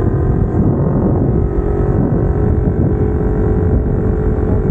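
Kawasaki Ninja 250R's 249 cc parallel-twin engine running at fairly steady revs through aftermarket headers and exhaust while the bike is ridden.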